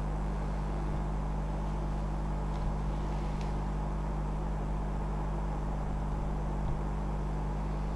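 Steady low hum and hiss of room background noise, with a few faint ticks.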